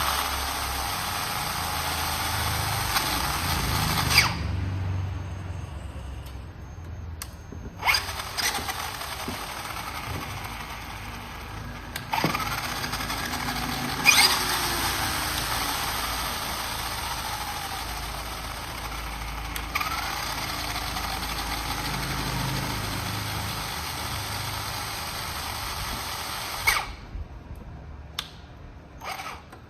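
Handheld power tool running in two long stretches, with a short stop a few seconds in and a few sharp knocks along the way.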